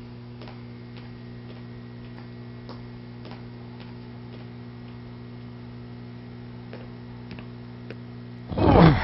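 A steady electrical hum with a clock ticking slowly, about one tick every two-thirds of a second. Near the end a brief, louder noisy sound swells up.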